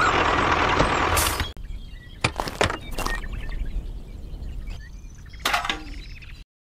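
A loud rushing noise that stops sharply about a second and a half in, then a few light clicks and knocks of small model pieces being handled and set down by hand.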